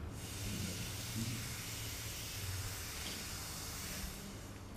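Steady hiss of breath blown hard through a drinking straw, keeping a ping-pong ball floating in the air stream above it. The blowing tails off after about four seconds.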